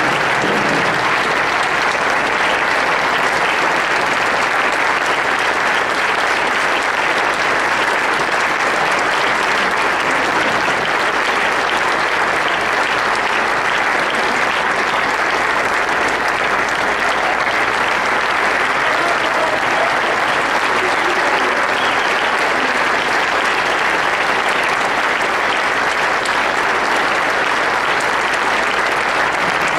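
A roomful of people applauding, steady and unbroken.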